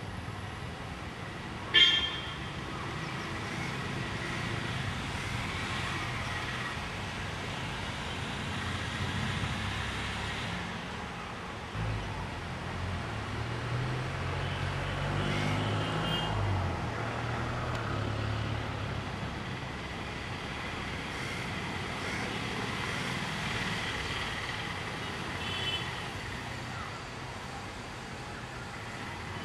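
Road traffic running steadily, with a short, loud horn toot about two seconds in and a fainter toot near the end; a heavier vehicle's engine rumbles past midway.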